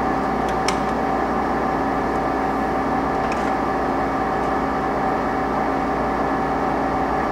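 Ganesh GT-3480 heavy engine lathe running under power, its headstock and feed gearing giving a steady hum with several steady whining tones.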